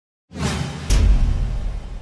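Logo intro sound effect: a whoosh swells in, then a deep impact hit about a second in that rings and slowly dies away.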